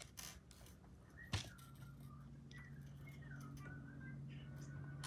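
Faint clicking of clay beads and the plastic organizer box as fingers pick through its compartments, with one sharp click a little over a second in. From about two seconds a low steady hum sets in, with faint wavering whistle-like tones above it.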